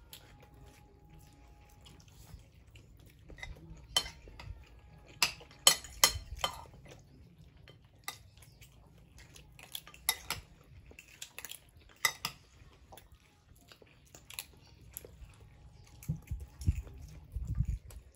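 Cutlery clinking and scraping against plates as people eat, in scattered sharp clinks, with the loudest cluster about six seconds in.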